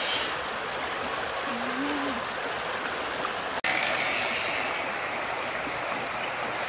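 Steady rushing of a shallow stream flowing over stones, with a brief low wavering tone about two seconds in.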